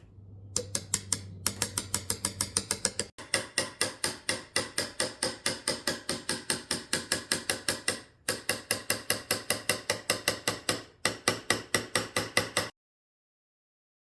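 Mallet tapping a carving chisel into wood in a steady run of sharp strikes, about four a second, with brief pauses between runs. This is the sound of traditional Korean relief carving (seogak).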